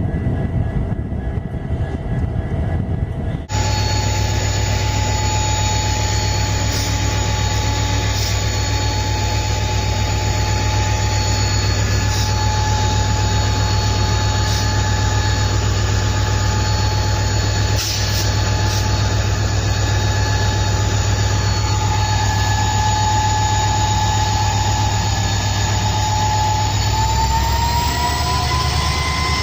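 WDP4 diesel-electric locomotive engine running steadily with a deep low drone and a high turbocharger whine. The sound changes abruptly after about three seconds, and the whine rises in pitch near the end as the engine picks up.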